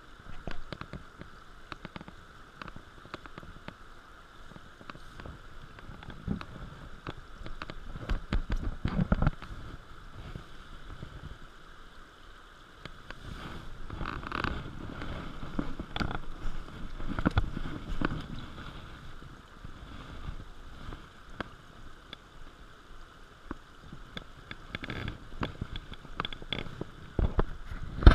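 Shallow stream water sloshing and splashing around hands and a landing net as a trout is held in the water and released, over a steady stream flow. Jacket rustle and small knocks from handling.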